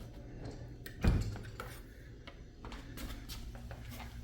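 Refrigerator door and cabinet being handled: a heavy low thump about a second in, then light clicks and knocks, over the steady low hum of the newly plugged-in refrigerator running.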